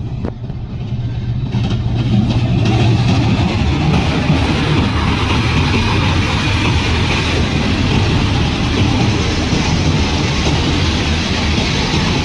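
Diesel-hauled passenger train crossing a steel girder bridge: the locomotive's engine and the wheels on the bridge rumbling, growing louder about two seconds in and then holding steady.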